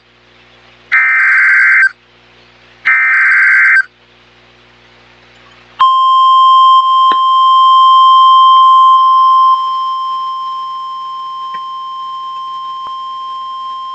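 NOAA Weather Radio emergency alert: the last two of the three SAME digital header bursts, each a harsh screech of about a second. About six seconds in the steady single-pitch warning alarm tone starts and holds, dropping in level after about four seconds. Together they signal that a warning-level alert, here a flash flood warning, is about to be read.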